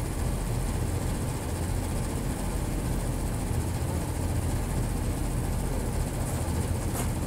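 Gree inverter air conditioner's outdoor unit running: compressor and condenser fan giving a steady low hum with a haze of fan noise, the unit working normally with its H5 fault cleared. A faint click near the end.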